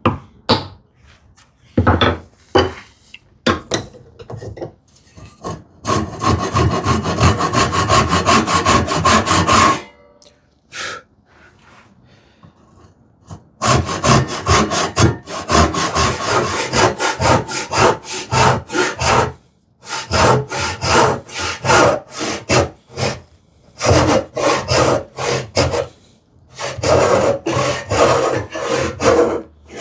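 Hand saw cutting through wooden leg stock in quick back-and-forth strokes. There are several runs of sawing, each broken by a short pause.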